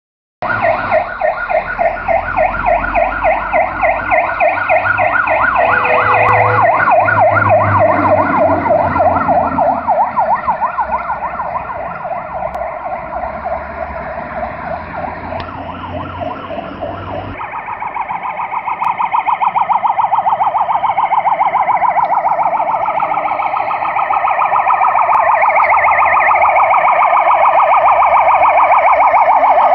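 Fire engine sirens on an emergency run, sounding a fast, rapidly repeating warble. About two-thirds of the way through, the siren pattern switches abruptly to a different tone, and it grows louder again toward the end as the vehicle approaches.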